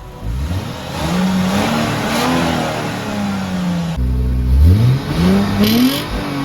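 Lexus IS250's 2.5-litre V6 revved through its exhaust, the pitch climbing and falling back; there is an abrupt cut about four seconds in, after which it revs up again.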